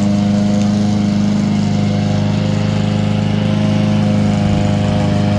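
Homemade remote-control zero-turn lawn mower running steadily while mowing, its blade spinning with a constant, even hum.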